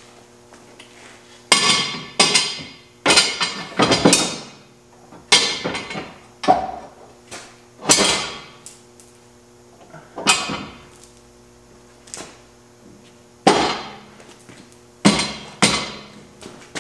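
Hammer striking metal: about a dozen sharp blows at irregular intervals, often a second or more apart, each ringing out briefly.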